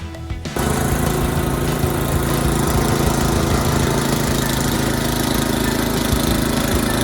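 Toro snowblower's gas engine running steadily under load, cutting in abruptly about half a second in.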